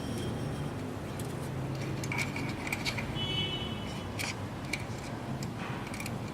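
Scattered light clicks and taps from small hard parts being handled, with a brief high ringing tone about three seconds in, over a steady low hum.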